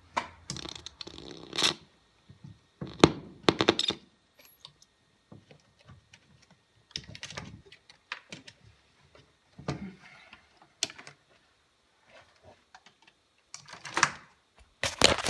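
Irregular clicking and clattering knocks in scattered bunches with short quiet gaps, over a faint steady high tone, with one brief high chirp about four seconds in.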